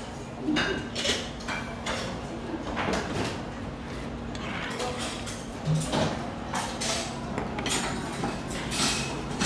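Chopsticks clicking and scraping against a black earthenware pot of galbitang (beef short rib soup) as the meat and noodles are stirred and lifted, in many short irregular knocks over a steady low hum.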